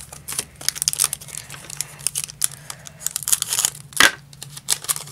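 A foil trading-card booster pack being crinkled and torn open by hand: a rapid run of sharp crackles, with the loudest rip about four seconds in.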